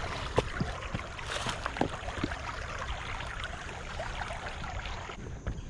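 Steady rushing of a creek's running water, with a few sharp clicks and taps over it.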